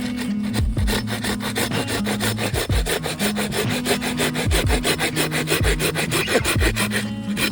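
Hand saw cutting through firewood in quick, even back-and-forth strokes, several a second, without a break.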